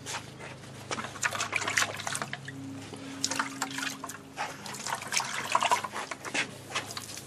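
2000-grit wet/dry sandpaper wet-sanding a 2006 Honda Odyssey's plastic headlight lens: an uneven run of wet, scratchy rubbing strokes.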